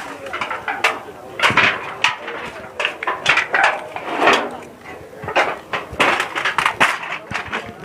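Voices of people talking in the background, broken up, with scattered sharp knocks and clicks.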